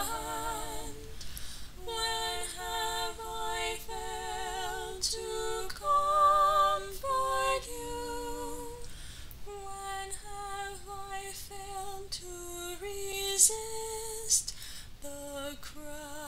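Unaccompanied female voice singing a slow, lullaby-like melody in held notes with vibrato, rising to its loudest, highest note about six seconds in.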